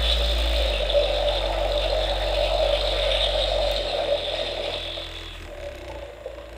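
Hasbro Plasma Series Spengler's Neutrona Wand playing its slime-mode firing effect: a steady electronic stream sound over a deep rumble. The rumble drops away after about four seconds, and the effect fades out before the end.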